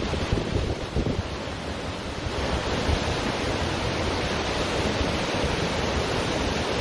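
Ocean surf washing onto a beach as a steady rushing noise, with wind buffeting the microphone in gusts during the first couple of seconds.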